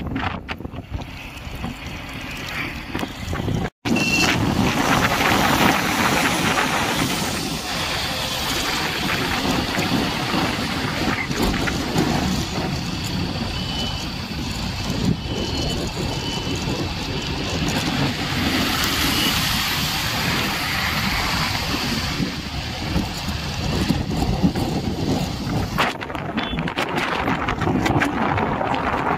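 Steady road and wind rush from a moving vehicle, with wind buffeting the microphone. The sound cuts out for an instant about four seconds in, and a few faint short high tones come through near the middle.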